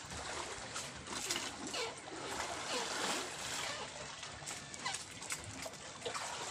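Seawater lapping and splashing against the side of a small outrigger boat, a steady wash of water noise.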